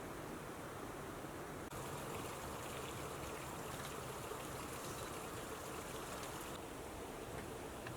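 Faint, steady rushing noise. It brightens suddenly about two seconds in and drops back near the end.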